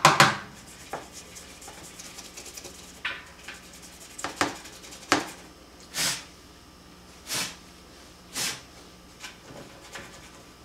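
Toothbrush scrubbing dried gunk loose from the top rim of an old top-loading washing machine's tub: short, separate scratchy strokes, a second or so apart.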